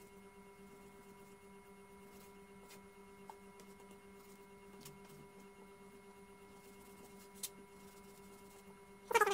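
Steady electrical hum, with a few faint clicks of a kitchen knife meeting a plastic cutting board as bread is cut into cubes. A short loud animal-like call with a wavering pitch breaks in right at the end.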